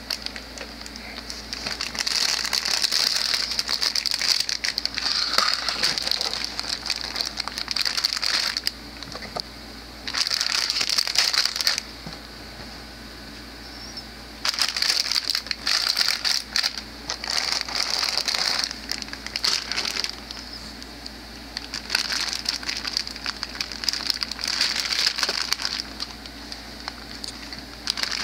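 Clear plastic bags around plastic model kit runners crinkling as they are handled, in several bouts of a few seconds with short pauses between them.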